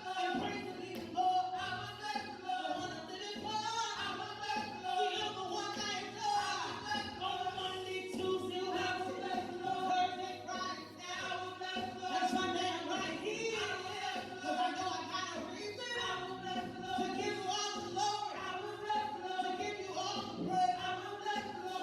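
A group of church singers singing a gospel praise song, several voices held on long sung notes.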